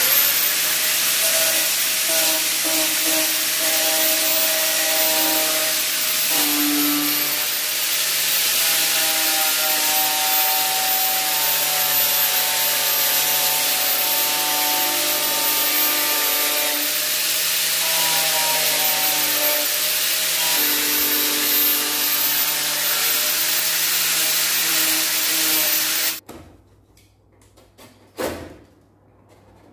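Small electric rotary tool with a sanding disc running against the plastic edge of a headlight housing. Its whine shifts in pitch as the load changes, and it cuts off suddenly a few seconds before the end.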